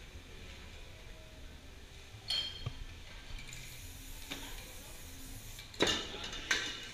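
Metal spray paint cans clinking against one another as cans are picked out of a crowded row, a handful of short, sharp clinks with the loudest near the end.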